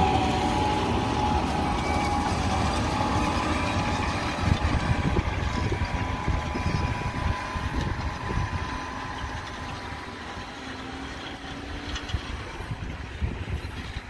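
Tractor diesel engine working under load as it pulls a reversible plough through the soil, with a steady engine note that fades as the tractor moves away. Wind rumbles on the microphone throughout.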